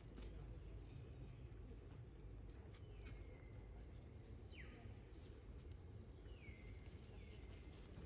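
Faint outdoor ambience with a steady low rumble. From about three seconds in come four short, high animal chirps that each glide down in pitch, and a few faint clicks.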